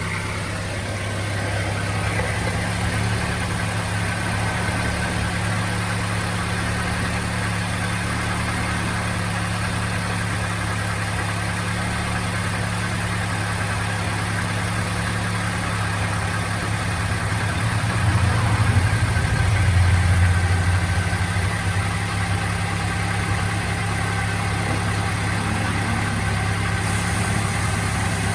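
Mazda MX-5's four-cylinder engine idling steadily, running so the transmission can be flushed with misted cleaning agent; the hum grows a little louder and deeper for a few seconds about two-thirds of the way through.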